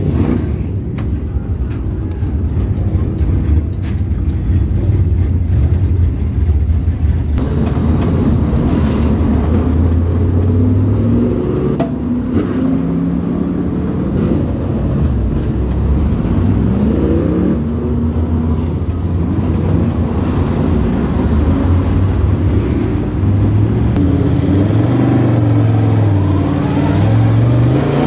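Sportsman dirt track race car's V8 engine at racing speed, heard from inside the cockpit. It runs loud and steady, its pitch rising and falling again and again as the driver gets on and off the throttle.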